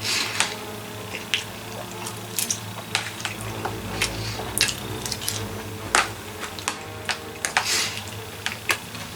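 Eating from a takeout party tray: irregular sharp clicks and taps of a utensil against the tray and food, with chewing, over a steady low hum.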